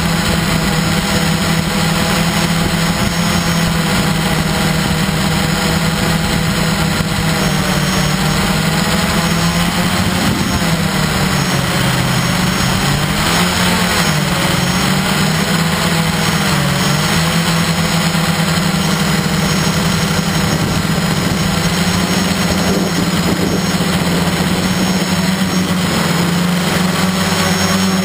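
A radio-controlled aircraft's motors and propellers, heard from the camera mounted on the craft, giving a loud steady drone. Its pitch dips and wavers several times from about ten to seventeen seconds in as the motor speed changes, then holds steady again.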